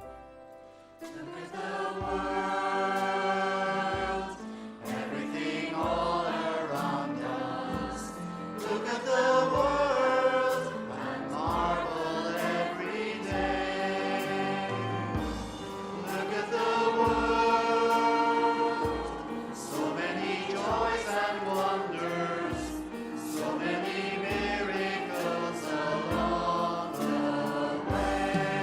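Church worship group singing together with praise band accompaniment, over a steady low beat.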